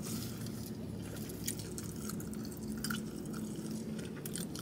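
A person chewing a mouthful of buffalo chicken snack with ranch, with a few small wet mouth clicks, over a low steady hum.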